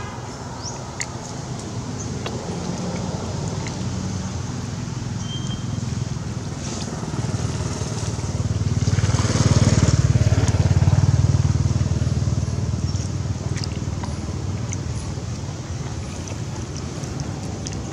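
A motor vehicle's engine runs steadily, growing louder to a peak about halfway through and then fading as it passes.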